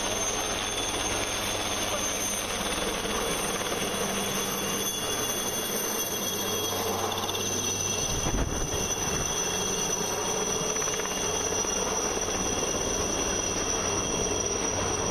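Light military helicopter of the Chetak (Alouette III) type flying low overhead: a steady rotor and turbine noise with a high whine, swelling briefly in the low end about eight seconds in.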